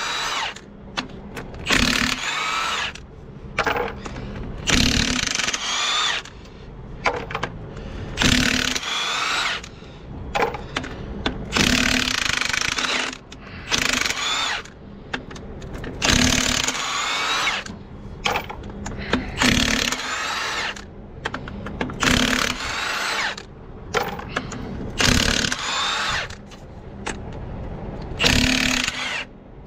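Impact wrench undoing the half-shaft bolts on an MAN truck's drive-axle hub, in about ten short bursts, one every two to three seconds.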